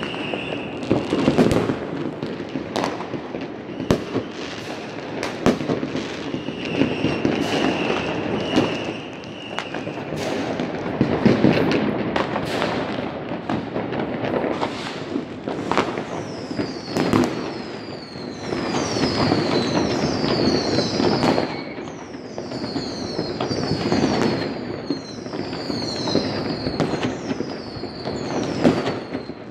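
New Year's Eve fireworks and firecrackers going off all over a city: a steady crackle with many sharp bangs, some near and some distant. From about halfway through, a run of high whistles falls in pitch one after another.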